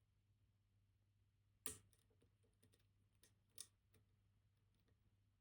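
Faint, sparse metallic clicks and taps of a pick and tension wrench working the levers inside a MIWA PR lever lock, with a sharper click about a second and a half in and another about three and a half seconds in.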